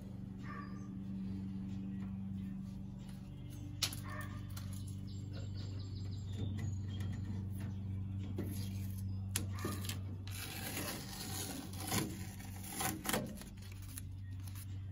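Handling noise of a cardboard template being pressed against and pulled away from the sheet-metal wheel well, rustling and scraping, with a few sharp knocks in the second half, over a steady low hum.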